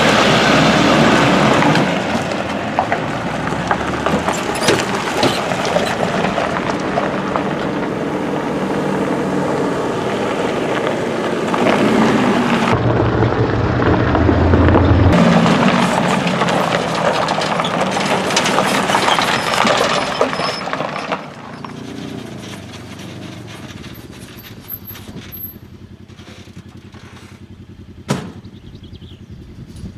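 Pickup trucks towing trailers driving slowly past close by, engines running and tyres on gravel; the sound drops after about twenty seconds to a quieter engine running, with one sharp knock near the end.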